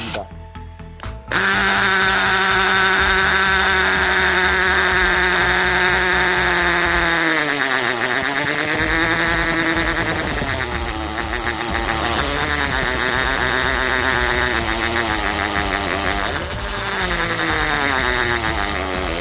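Tool n Tool GTC-HD18V 18-volt cordless hammer drill boring into a concrete paving block in its high-speed gear. It starts about a second in, and its motor pitch sags under load midway, then picks back up and wavers as the bit works through the concrete.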